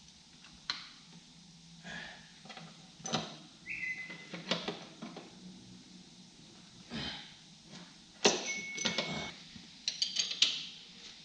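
Scattered clinks, knocks and scrapes of hand tools on metal at a Ford Mustang S550's rear differential mounts, with two short high tones about four and nine seconds in.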